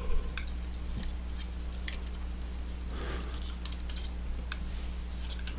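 Small, irregular plastic and metal clicks and light scraping as gloved hands fit the floppy drive and its flat ribbon cable into an opened MSX computer, the sharpest click just after the start, over a steady low electrical hum.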